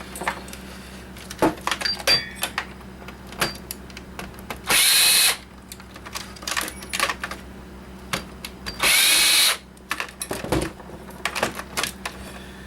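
Cordless power driver run in two short bursts about four seconds apart, backing out screws during an electronics teardown. Between the bursts come small clicks and knocks of parts being handled.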